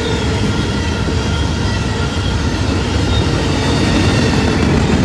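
CN freight train 120 rolling past with a steady low rumble of wheels and cars.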